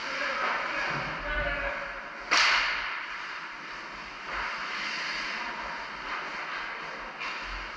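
Ice hockey in an indoor rink: distant players' voices, then one sudden loud sharp hit about two and a half seconds in that trails off over about half a second, over a steady noisy rink haze.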